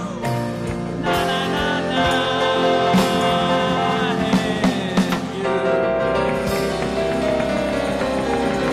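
Live band music with held electric-organ chords and drum hits, a man singing over it.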